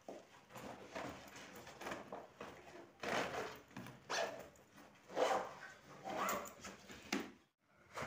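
Fabric backpack being handled and packed by hand: a run of short rustling, scuffing sounds roughly a second apart, cut off abruptly near the end.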